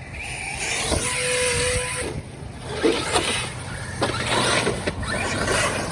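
Arrma Kraton 8S RC truck being driven hard: its brushless motor gives a steady whine for about a second, over the hiss of tyres and dirt, with a few short knocks later on.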